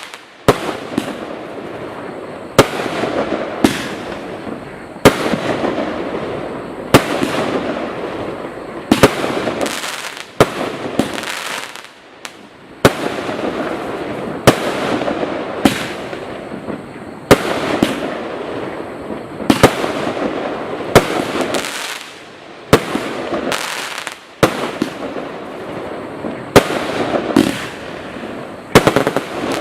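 Total FX Caged Jaguar firework cake going off: a run of sharp bangs about once a second over a continuous rushing, crackling noise, with brief lulls between volleys.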